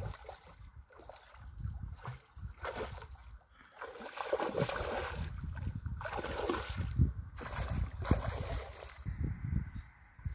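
A hooked fish splashing and thrashing at the surface of the pond as it is played in on the rod, in several bursts of splashing, loudest in the middle.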